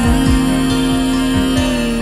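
Soft background music: a long held note over low drum beats.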